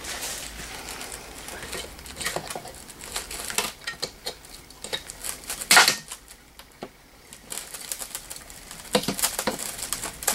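Irregular clicking and rattling of plastic and metal as hands work a headlight bulb socket loose in a cracked plastic headlight housing on a Honda 250SX ATV, with one louder clack just before six seconds in.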